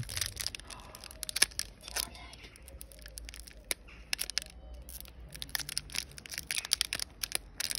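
Foil Pokémon booster pack wrapper being torn and crinkled open by hand: an irregular run of sharp crackles and rustles, with one louder snap about a second and a half in.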